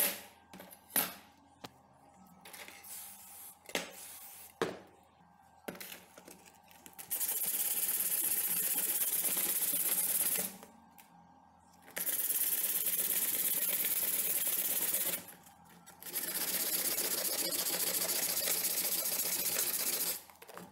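A few metallic clicks and knocks from the steel knife blank being handled on a table. Then three long stretches of steady scraping hiss, each about three seconds with short pauses between, as the blade's blackened forge scale is rubbed off by hand with an abrasive.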